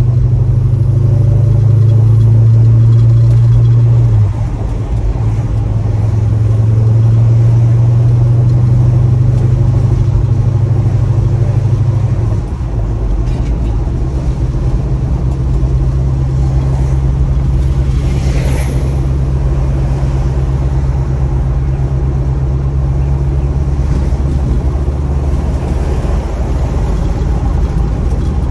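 1965 Pontiac GTO's V8 engine and exhaust running steadily, the note dipping briefly about four seconds in and again about twelve seconds in.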